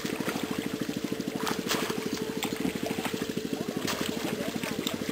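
A small engine running steadily with a fast, even beat, with scattered short clicks and splashes over it.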